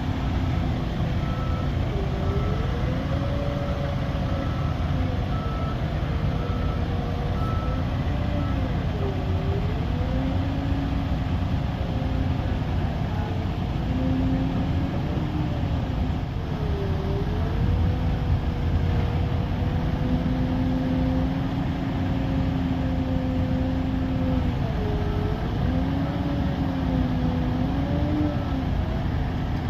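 Heavy truck, a Kenworth W990, running on the road: a steady low rumble with a whine that dips and rises every few seconds. Faint evenly spaced beeping sounds over it in the first several seconds.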